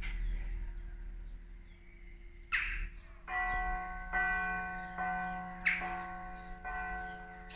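Church bells of the Chiesa Madre ringing, struck over and over at about one stroke a second. Each stroke's notes ring on into the next.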